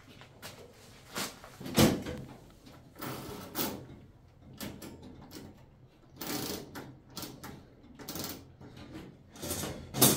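A string of irregular knocks and clatters, the loudest about two seconds in and another near the end.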